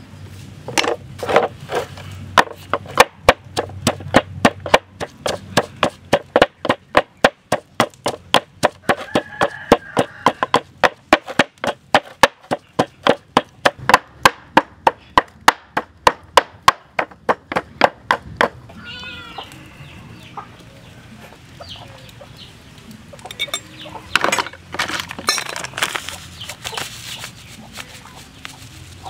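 Wooden pestle pounding in a wooden mortar, about three steady strokes a second, crushing fresh chili, lemongrass, kaffir lime leaves and garlic into a paste for chili sauce. The pounding stops about two-thirds of the way through, and chickens cluck afterwards.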